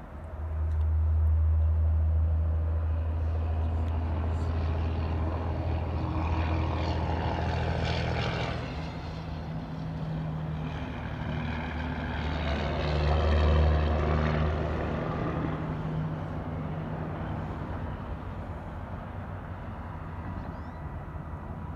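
Diesel locomotive engines running with a low, steady drone that starts abruptly and drops away about three quarters of the way through. A rushing noise swells and fades twice over it.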